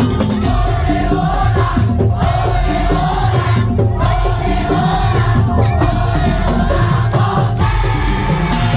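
Madurese tong-tong (daul) ensemble playing: heavy drums and gongs with a wavering, bending melody line above them.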